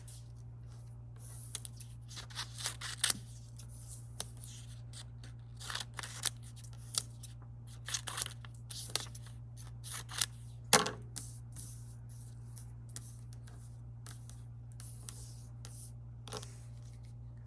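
Scissors snipping through paper in irregular cuts, with paper handled and rustled between them, as pictures are cut out of a worksheet. A low steady hum sits underneath.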